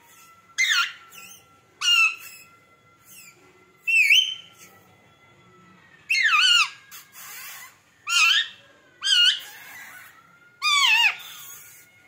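Rose-ringed parakeet giving about seven short, loud calls one to two seconds apart, each a quick warbling sweep in pitch, one of them a doubled note.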